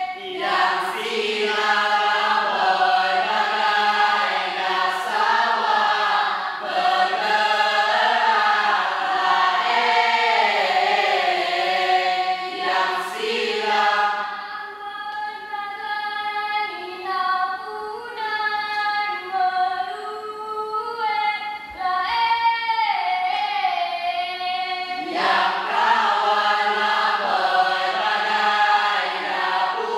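A group of female voices singing a traditional Mek Mulung song together in a slow, winding melody. About halfway through the singing thins and softens, then the full group comes back in near the end.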